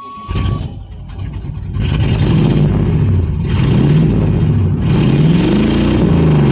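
A 1985 Suburban's Quadrajet-carbureted V8 catches just after a short beep and keeps running. The revs rise and fall twice as the gas pedal is pumped to keep the hard-starting engine from dying on its gummy carburetor.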